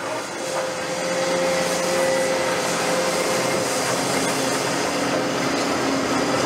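Caterpillar 330F excavator running, a steady mechanical drone with a held whining tone through roughly the first half.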